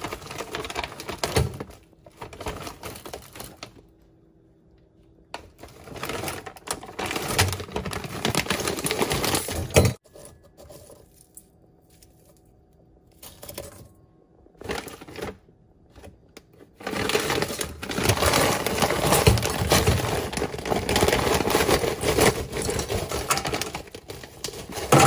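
Frozen crawfish clattering and rattling into a stainless steel pot as they are tipped and handed out of a plastic bag, with the bag crinkling. It comes in several bursts with pauses between, the longest and densest run in the last third.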